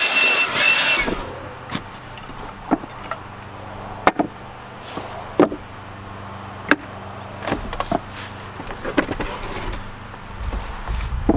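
A handheld cordless blower runs and cuts off about a second in. Then come scattered wooden knocks and clatters as cut wood slabs and boards are lifted and set down on a woodpile, over a faint low steady hum.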